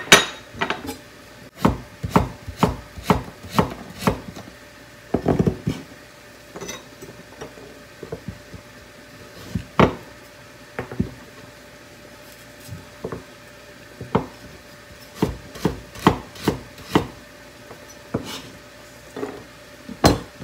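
Chef's knife slicing fresh ginger on a plastic cutting board: a run of sharp knocks, unevenly spaced, as the blade strikes the board, with a few louder ones.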